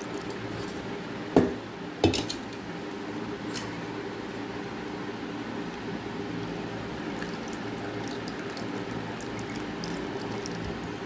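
Wheat milk trickling steadily in a thin stream from a steel strainer into the liquid in a steel bowl. Two sharp metallic clinks of the strainer and bowl come about one and a half and two seconds in.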